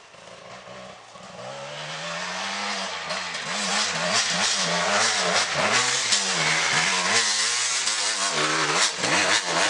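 Enduro dirt bike engine coming closer through the woods, the rider working the throttle so the pitch rises and falls again and again. It grows from faint to loud over the first few seconds and is loudest as the bike passes close near the end.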